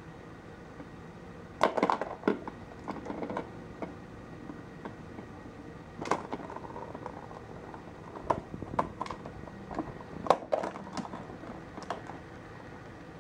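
Plastic ball track toy (Petstages Cheese Chase) clicking and rattling in irregular bursts as a kitten bats at the ball inside it. The loudest knocks come about two seconds in and again near ten seconds.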